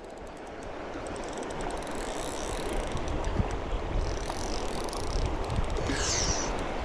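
Running river water close to the microphone, mixed with wind buffeting it and a jacket sleeve brushing against it; the noise builds slowly, with a few faint ticks.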